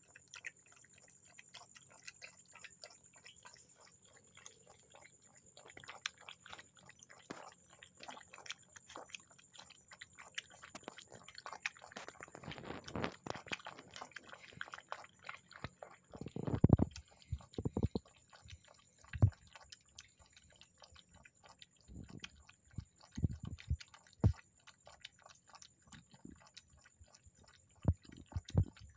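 A puppy lapping milk from an aluminium basin: a quick, wet, irregular run of laps and drips, with a few louder low thumps in the second half.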